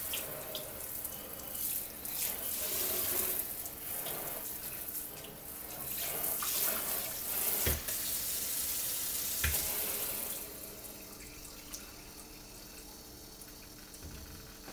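Tap water running and spraying from a kitchen faucet and hose side sprayer into a stainless steel sink, rinsing it out. There are two short knocks in the middle, and the water gets quieter about two-thirds of the way through.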